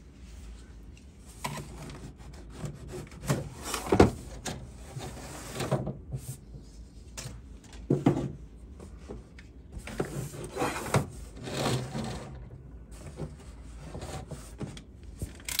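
Small wooden blocks being handled and slid on a hardboard layout surface: irregular rubbing and scraping with a few light knocks, the sharpest about four seconds in and again about eight seconds in.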